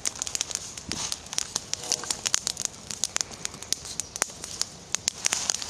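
Campfire of wet branches crackling with many irregular sharp pops, the wet wood crackling as it burns.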